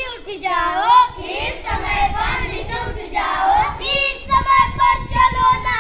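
A group of children singing a Hindi nursery rhyme together in a sing-song chant, drawing out one long held note over the last second and a half.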